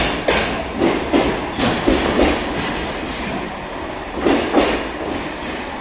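Freight train of container flat wagons rolling past, its wheels clicking over rail joints in quick knocks over a steady rumble. The knocks come several in a row at first, thin out, then return as a louder pair about four seconds in as the last wagons go by.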